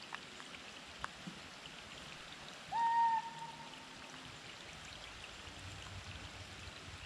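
A single clear whistled call about three seconds in, sliding up briefly and then held for about half a second, over a faint steady hiss with a couple of small clicks.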